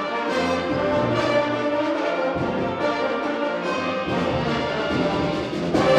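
High school concert band playing a march-like wind band piece, with the brass section to the fore and the full ensemble swelling louder just before the end.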